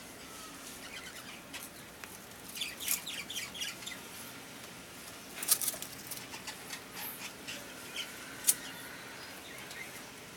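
Puppies play-fighting on concrete: a flurry of short, high scratchy sounds, with two sharp clicks, one about halfway through and one near the end.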